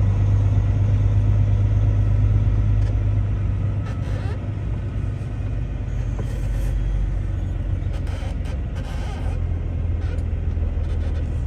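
Truck engine running at low revs, a steady low drone that drops a little in level about four seconds in.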